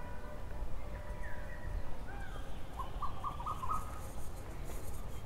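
Birds calling in the trees: a couple of short sliding calls, then a quick run of four or five short notes about three seconds in, over a steady low rumble.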